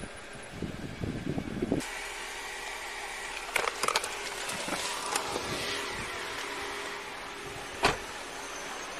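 Handling noise from a body-worn camera: low thumps and rustling, then a steady hiss with scattered clicks and rustling as the wearer moves about in a car and gets out. A single sharp knock comes near the end.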